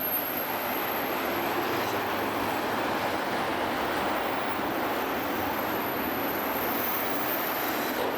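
Steady rushing noise of street traffic mixed with wind, with no single event standing out.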